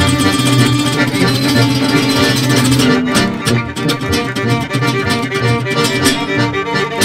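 Klezmer band music with fiddle and guitar, laid over as the soundtrack; about three seconds in it moves to a sparser passage of more separated notes.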